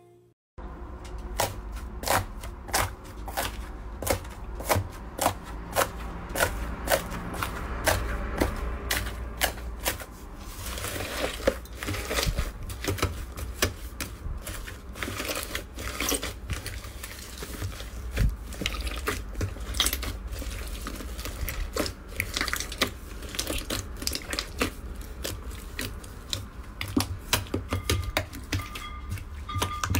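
Slime being pressed and squished by hand, giving repeated sharp crackling pops and clicks, about one or two a second, over a low steady hum.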